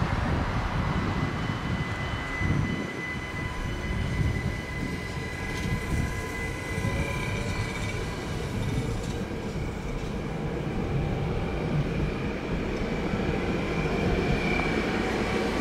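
ÖBB Cityjet electric multiple unit rolling past: a steady rumble of wheels on the rails, with a high electric whine from its drive that rises slightly midway and again near the end.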